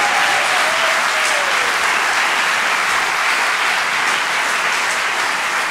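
A theatre audience applauding steadily, many people clapping at once.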